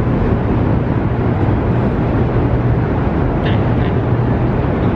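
Steady, loud low rumble with a constant deep hum inside a Hoover Dam diversion tunnel.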